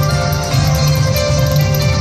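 Music accompanying a stage dance, with a steady low beat.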